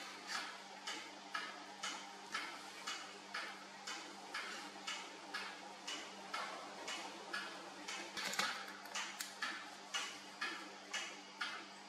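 Steady, even clock ticking, about two ticks a second, over a faint steady hum, with a few extra small clicks about eight seconds in.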